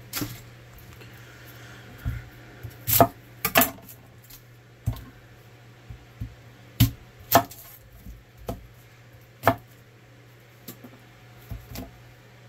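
Chef's knife cutting through a whole onion and knocking on an end-grain wooden cutting board, in single sharp strikes at irregular intervals.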